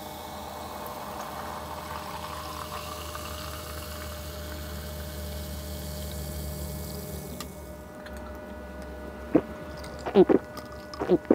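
Carbonated lemon soda (Limca) poured from a plastic bottle into a glass, fizzing, the pitch of the pour rising as the glass fills. The pour stops about seven and a half seconds in, and near the end come a few sips and gulps as the soda is drunk.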